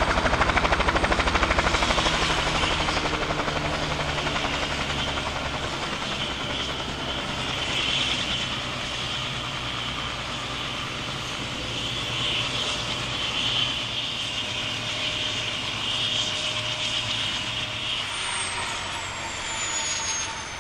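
Bell 505 Jet Ranger X helicopter turbine running, with a steady high whine. A fast rotor beat is strong at first and fades over the first few seconds. Near the end a high whine glides down in pitch.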